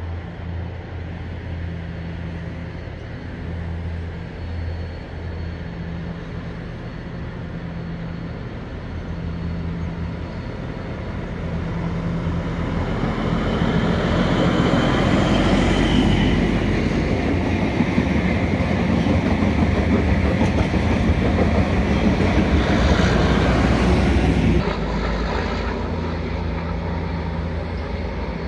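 XPT diesel passenger train approaching and passing close by. A low drone swells from about twelve seconds in into a loud rumble of engine and wheels, then drops off sharply near the end as the train goes past.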